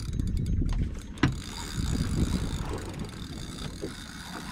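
Fishing reel working under heavy load as a large fish pulls line off it, a rough mechanical ratcheting, with one sharp click about a second in.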